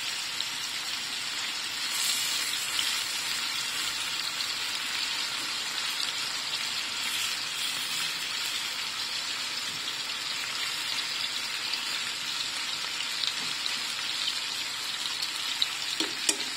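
Chicken breast pieces coated in paprika sizzling steadily as they fry in oil in a nonstick frying pan, being lightly browned before the sauce goes in.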